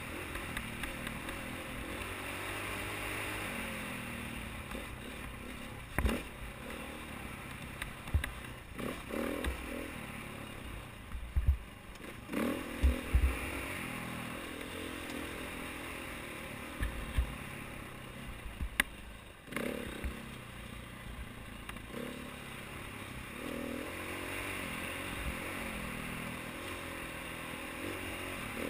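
KTM 450 XC-W's single-cylinder four-stroke engine running under load on a dirt trail, its revs rising and falling as the throttle is worked. Several sharp knocks and clatter from the bike hitting bumps cut in, the loudest in the middle of the ride.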